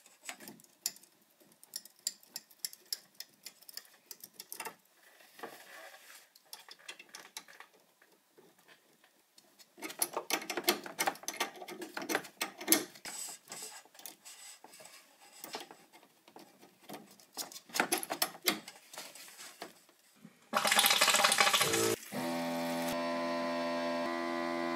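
Small clicks and taps of brass plumbing fittings being unscrewed and threaded on by hand on a hydronic heating manifold, as an auto air vent is removed and a flushing fitting attached. About twenty seconds in comes a short rush of water, then a steady hum sets in.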